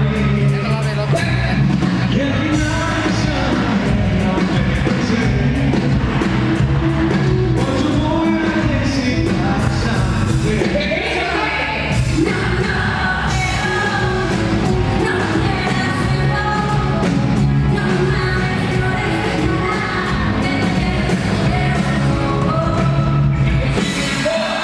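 Pop-rock band playing live with a lead singer and a steady drum beat.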